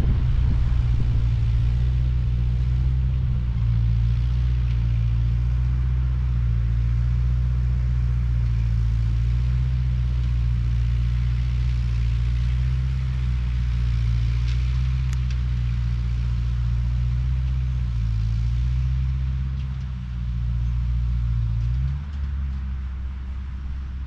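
Ford 8N tractor's four-cylinder engine running steadily under way; near the end its speed dips and then picks back up.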